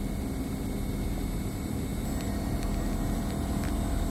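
Steady low machinery hum, with a few faint clicks about halfway through and near the end as a USB printer cable's plug is pushed into the port of a handheld maintenance tool.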